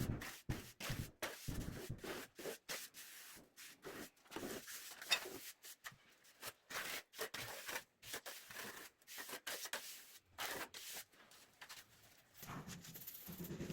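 Irregular scraping and rubbing, a quick uneven series of short strokes, with a quieter stretch near the end.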